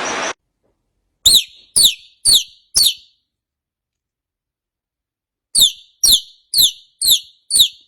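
A bird chirping in two runs of short, falling chirps about two a second, four and then five, separated by a few seconds of silence.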